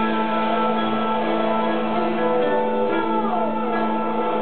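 Ambient live music: steady layered drones built up through a looping pedalboard, with a Bulgarian tambura plucked over them. About three seconds in, a sliding tone falls in pitch.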